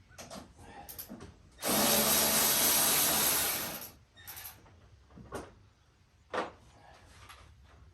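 A handheld power drill-driver runs for a little over two seconds, at a steady speed, loosening a fastener. It is surrounded by a few short clicks and knocks of tools and parts being handled.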